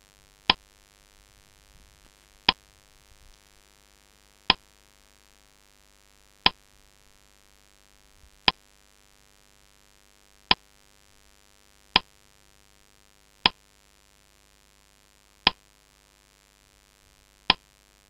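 Quiz countdown timer sound effect: a short pitched tick about every two seconds, ten in all.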